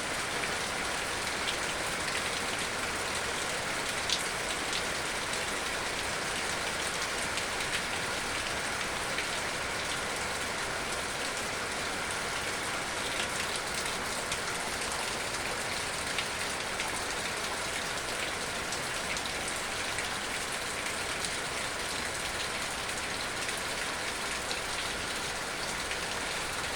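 Rain falling steadily: an even hiss with scattered ticks of individual drops.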